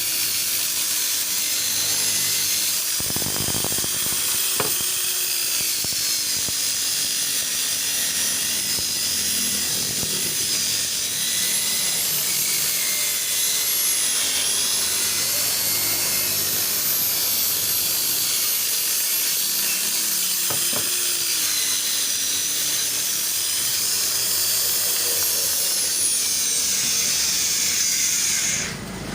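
Electric polishing machine running steadily while buffing a plastic car headlamp lens, its whine wavering a little in pitch. This polishing stage follows sanding and removes the sanding scratches from the lens. It switches off just before the end.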